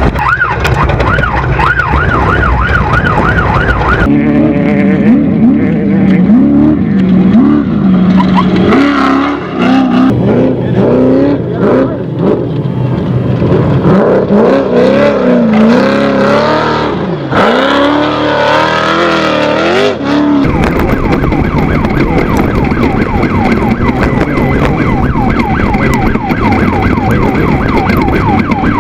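Off-road race buggy engines revving hard, their pitch rising and falling rapidly and unevenly as the throttle and wheel speed change over rough desert terrain. The sound changes abruptly about four seconds in and again near the two-thirds mark.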